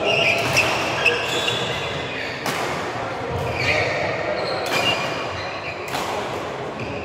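Badminton hall between points: several sharp racket-on-shuttlecock hits from rallies on neighbouring courts, spaced about a second apart, with players' voices in the echoing hall.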